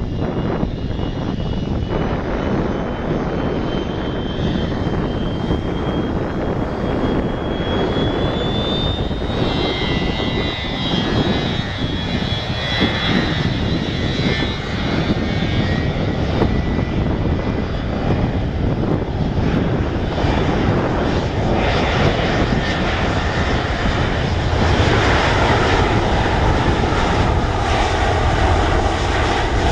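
McDonnell Douglas MD-83's two rear-mounted Pratt & Whitney JT8D-219 turbofans spooling up to takeoff power. A whine rises in pitch over about the first nine seconds above a steady rumble, which grows louder near the end as the jet accelerates down the runway past the microphone.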